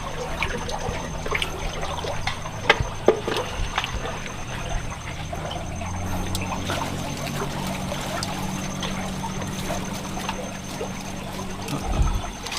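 Shallow water sloshing and trickling, with scattered small splashes and knocks over a steady low hum.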